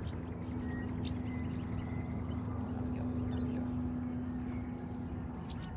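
A boat motor humming steadily at an even pitch.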